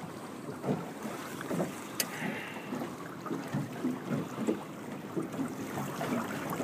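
Water lapping and splashing against a boat hull, with wind buffeting the microphone, and a single sharp click about two seconds in.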